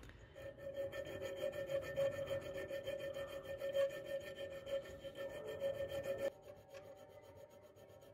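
Small flat hand file rasping against the steel inside the jaw of an old wrench clamped in a bench vise, the metal giving a steady ringing pitch under the file. It stops suddenly about six seconds in.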